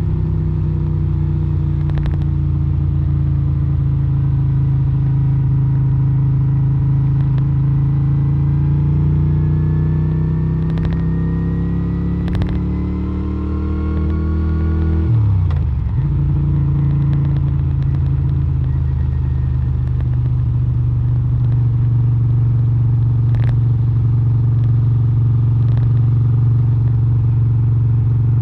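Moto Guzzi V7 Stone 850's air-cooled V-twin running through a Mistral Short aftermarket exhaust while riding. The revs climb slowly, dip sharply about halfway through, then run steady.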